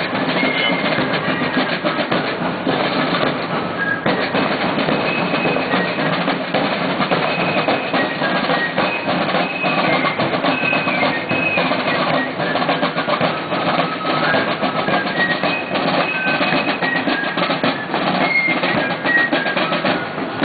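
Parade drums playing a fast, dense marching beat, with short high held notes sounding over it now and then.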